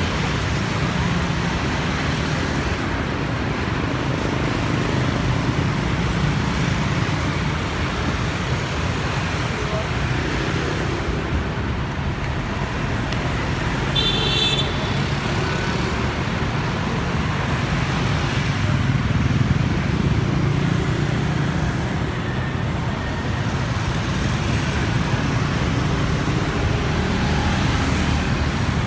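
Steady roadway traffic: a dense stream of motorbikes, cars and trucks, including a container semi-truck, running past with a continuous engine and tyre rumble. About halfway through there is a short horn beep.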